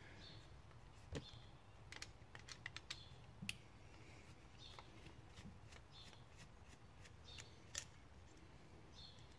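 Scattered light clicks and taps of small parts and hand tools being handled at a workbench, over near-silent room tone, with a quick run of clicks a couple of seconds in.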